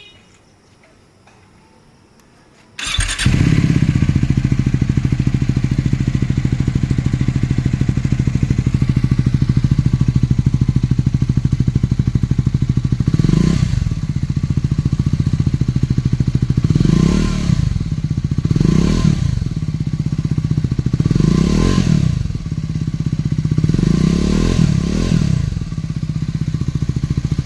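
Triumph Scrambler 400X's single-cylinder engine, fitted with an AEW slip-on exhaust, starts up about three seconds in and idles steadily. In the second half it is revved in about six short throttle blips, each dropping back to idle.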